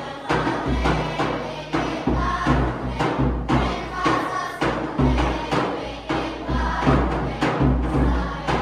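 Dhol drum beating a regular, deep dance rhythm while a group of voices sings a folk song over it.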